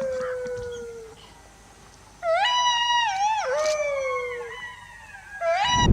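Indian wolf howling. A falling howl trails off in the first second. A new howl starts about two seconds in, wavers, slides down and fades, and another howl begins just before the end.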